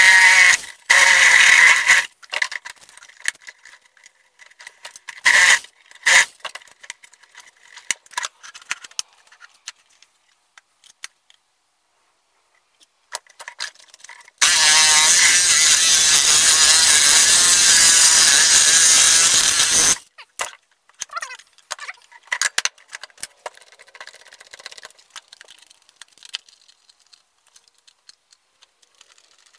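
Workshop power tool run in a few short bursts, then one steady run of about five and a half seconds that stops suddenly. Tool and parts clatter on a wooden bench between the runs.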